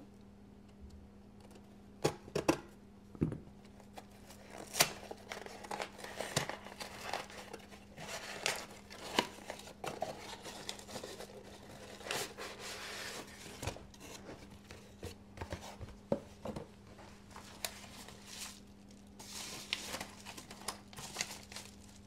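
A cardboard shipping box being opened by hand with a small knife: the blade slicing through packing tape, cardboard flaps tearing and paper rustling, with irregular sharp clicks and taps from the handling.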